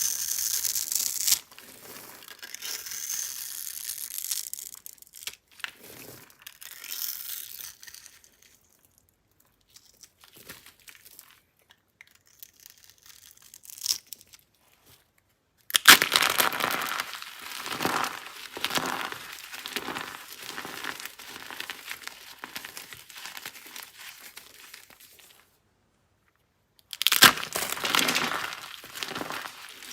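Dry soap being crushed and crumbled, a crackly crunching in several bouts with short pauses between them; the loudest stretch starts about halfway through and a fresh bout begins near the end.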